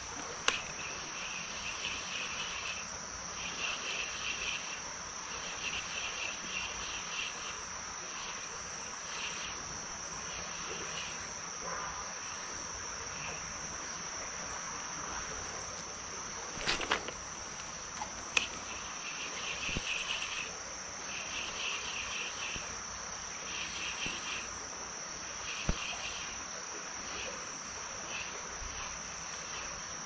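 Insects calling: one steady high-pitched buzz, with bursts of quick pulsed chirping every second or two, over an even rushing hiss of the stream. A few short sharp knocks stand out, the loudest about halfway through.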